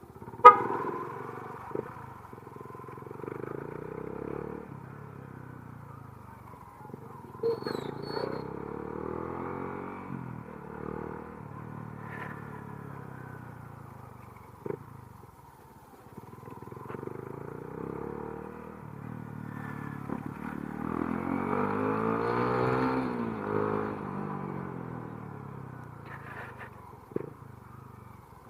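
Motorcycle engine and traffic heard during a highway ride, picked up by an action camera's microphone under a DIY wind cover. The engine note rises and falls in pitch, loudest about two-thirds of the way through, with a sharp knock about half a second in.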